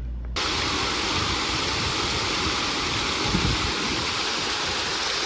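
Steady rush of falling water, starting suddenly about a third of a second in.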